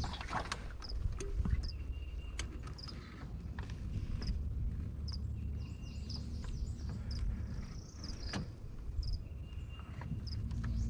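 Swamp ambience: birds chirping in short repeated notes and insects, over a steady low hum, with a few sharp knocks on the boat.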